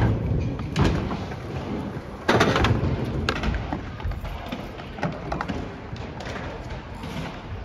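Skateboard wheels rolling over concrete with a steady low rumble, broken by sharp board impacts: a loud clack about two seconds in and a few lighter knocks after it.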